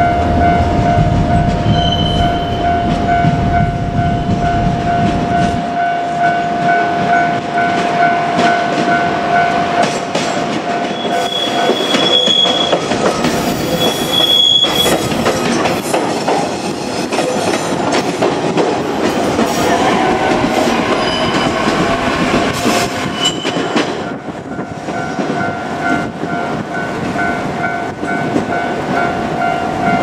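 JR Kyushu 817 series electric train rolling slowly past over a level crossing, its wheels clattering over the rail joints, with a couple of short high squeals midway. A level-crossing warning bell rings steadily at the start and again near the end, masked while the train is closest.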